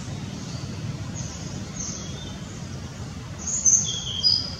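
Birds chirping in short high notes, loudest twice near the end, over a steady low background rumble.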